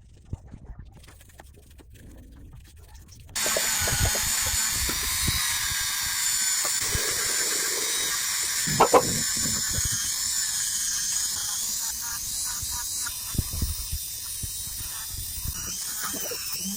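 A few faint clicks and taps, then about three seconds in a steady hiss with a thin high whine starts suddenly and runs on, with a few knocks over it, the loudest about halfway.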